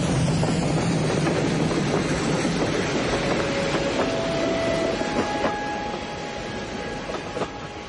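Steam train passing close at speed: a loud rushing clatter of wheels on the rails. It fades after about five seconds as the train pulls away, leaving a few sharp clacks over the rail joints near the end.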